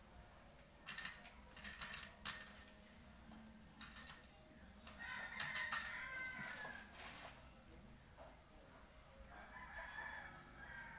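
Sharp clicks and clatter of small household objects being picked up and handled, loudest about a second in, two seconds in and again about five and a half seconds in. A drawn-out, wavering animal call sounds in the background from about five seconds in, with a fainter one near the end.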